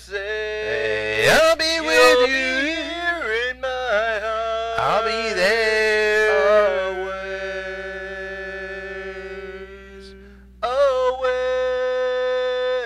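A man singing unaccompanied in long held notes, his voice sliding between pitches. One long note fades out about ten seconds in, and a new note starts a moment later and is held.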